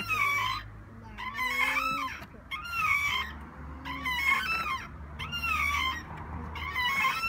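A child's bucket-seat swing squeaking as it swings back and forth. There is one short, gliding squeak at each end of the arc, about every second and a quarter.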